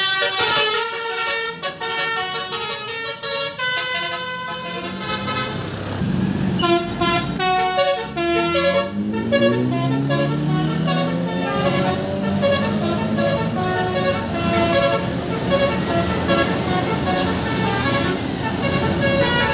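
Indonesian bus 'telolet basuri' musical horn tooting a melody of stepped notes. About eight seconds in, a bus engine revs up, its note rising over a few seconds, while the horn keeps playing.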